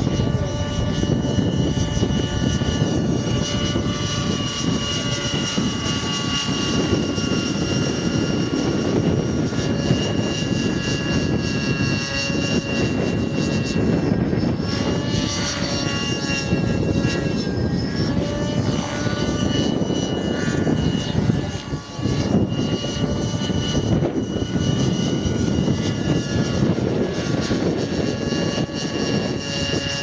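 Nitro-engined Align T-Rex 600 RC helicopter flying: a steady high engine-and-rotor whine that rises and falls a little in pitch as it manoeuvres, over a low rushing noise.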